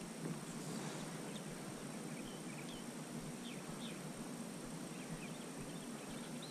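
Faint, scattered bird chirps over a steady low background hiss.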